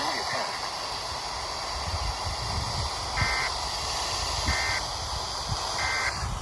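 Steady hiss of radio static from a weather-radio receiver. In the second half come three short electronic beeps, about a second and a quarter apart.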